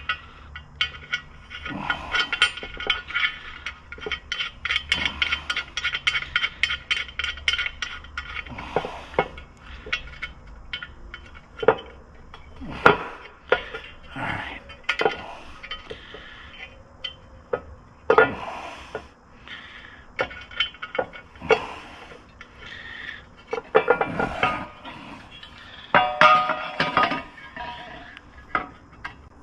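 Steel nuts clinking and tapping against an aluminum swingarm guard plate as they are set into place by hand. A fast run of small rattling ticks comes in the first several seconds, then scattered single clinks and knocks, a few of them ringing briefly.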